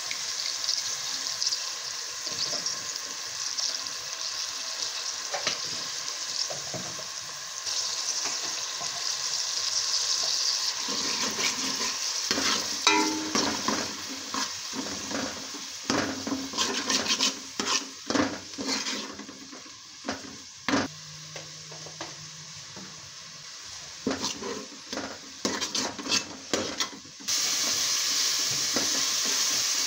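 Onion, tomato, green chilli and ginger-garlic paste sizzling as they fry in oil in a metal pot: the masala base for a daal tadka. From about halfway a metal spoon stirs, scraping and knocking against the pot. The sizzle dips, then is loud again near the end.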